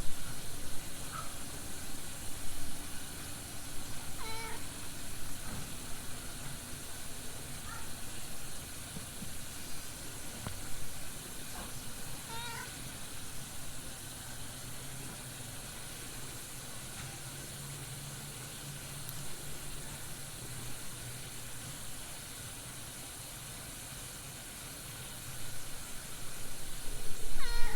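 A cat meowing a few times in short, separate calls, the clearest about four seconds in and again about twelve seconds in, over a steady background hiss.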